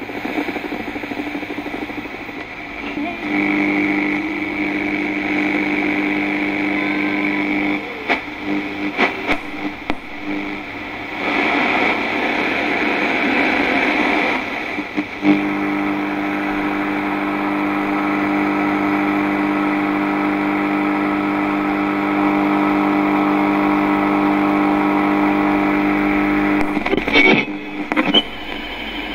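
Radio tuned across the dial through static: a hiss and crackle with a steady buzzing hum that comes in and drops out as the tuning moves. A rush of louder static about halfway through, and bursts of clicks just before it and near the end.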